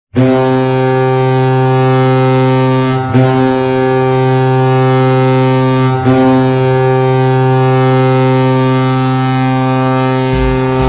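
Hockey arena goal horn sounding: a loud, low, steady horn blast held in three long pulls of about three seconds each, barely broken between them. Near the end a goal song with a heavy drumbeat starts under the still-sounding horn.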